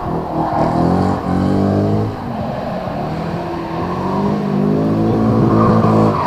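Drift car's engine revving hard, its pitch dropping briefly about two seconds in and then climbing steadily and getting louder toward the end as the car accelerates.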